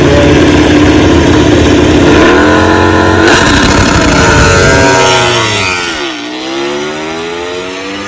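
Honda RC213V MotoGP bike's V4 engine held at high revs on the start line, then launched in a practice start. The engine note climbs, dips and climbs again through gear changes, and about six seconds in it drops in loudness as the bike pulls away.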